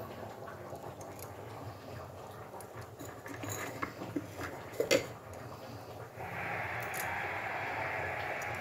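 Faint handling of thick green chutney in a bowl: a few light taps and a short wet squelch about five seconds in. Underneath is a steady background hiss, which gets louder about six seconds in.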